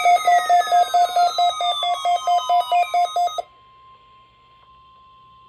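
Electronic alarm sound: a rapid beeping tone, about seven beeps a second, with long falling whistling sweeps laid over it. It cuts off suddenly about three and a half seconds in, leaving a faint steady tone.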